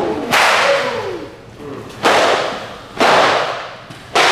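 Jiu-jitsu belts lashing against a gi in a belt-walk gauntlet: four sharp whip cracks about a second apart, each dying away in a short echo.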